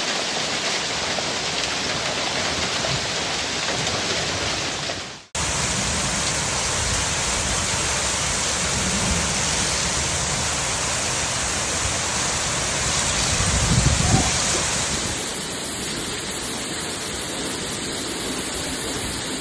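Heavy rain pouring down in a steady hiss, over several spliced clips that cut abruptly about a quarter of the way in and again about three-quarters through. A brief low rumble swells a little before the second cut.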